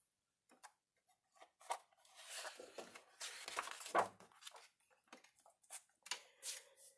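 Faint rustling and crinkling of a hardcover picture book's page as it is turned by hand and pressed flat, with a few light clicks and taps of paper and fingers.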